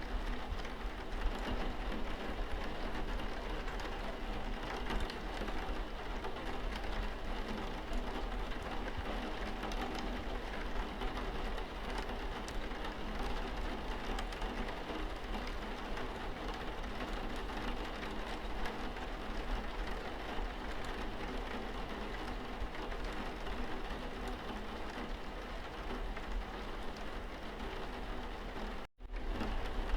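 Steady rain falling, a continuous hiss with the patter of individual drops. The sound cuts out for a split second about a second before the end, then resumes.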